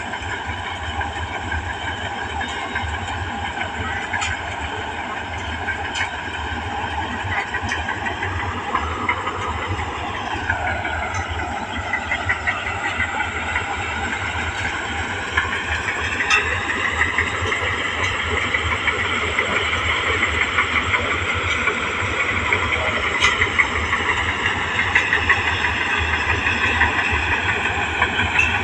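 New Holland 8070 paddy combine harvester running steadily, its engine and machinery note dipping about ten seconds in, climbing again a few seconds later, then easing off toward the end, with occasional sharp ticks.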